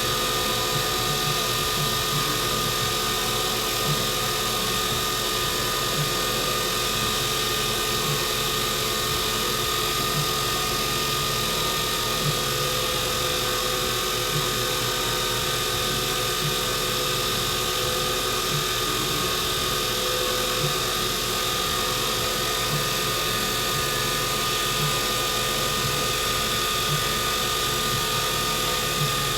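Wood lathe running steadily at speed with a constant whine made of several held tones, spinning a dyed and stabilized burl pen blank while it is wet sanded.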